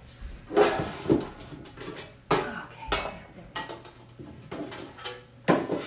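Stacked baking pans and molds clanking against each other, about six sharp knocks with short ringing, as they are rummaged through and pulled off a shelf.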